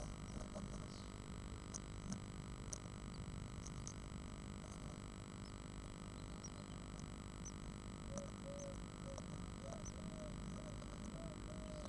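Steady electrical hum and hiss, with faint scattered ticks and scratches as the great tit moves in the nest box. From about eight seconds in, a run of short soft notes repeats about twice a second.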